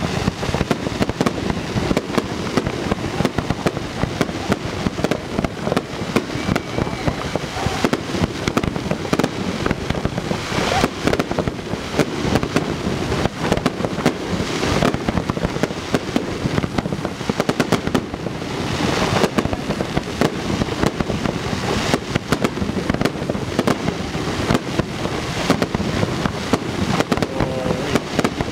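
Fireworks display: aerial shells bursting in a dense, unbroken barrage, the bangs and crackle overlapping one another, with a few brief hissing rushes among them.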